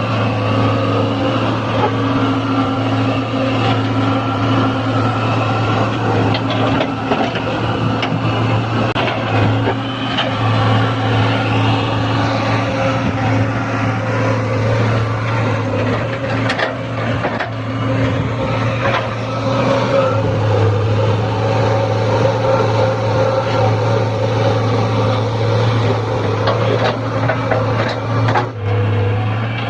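Fiat-Hitachi excavator's six-cylinder diesel engine running steadily under working load, its pitch dipping briefly a few times, with a few sharp knocks from the working machine around the middle.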